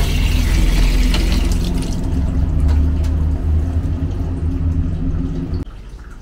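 Tap water running into a steel sink while eggs are washed, with a low steady hum underneath; the flow stops suddenly about five and a half seconds in.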